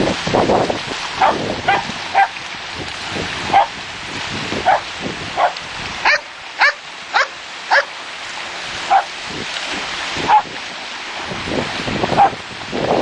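A dog barking in short, sharp yaps, about a dozen spread through, with a quick run of four higher yips a little past halfway. A steady hiss of surf and wind runs underneath.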